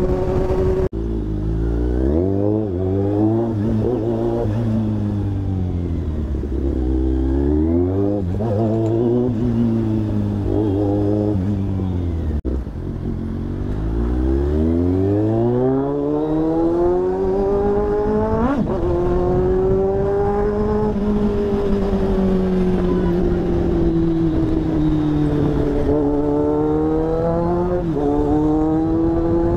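A motorcycle engine under way, its pitch rising and falling again and again as the rider opens the throttle through the gears and eases off in traffic, with one long climb to high revs past the middle.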